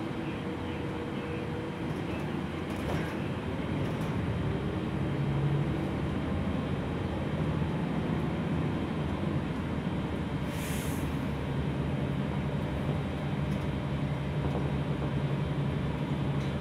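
Cabin sound of a Gillig low floor city bus under way: the engine and drivetrain hum steadily over road noise, with a few light rattles. A short hiss of air comes about ten and a half seconds in.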